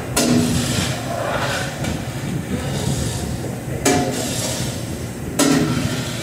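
Metal cookware and utensils clanking in a commercial kitchen: a sharp clank at the start, another near four seconds in and a third about a second and a half later, each with a brief metallic ring, over a steady low rumble.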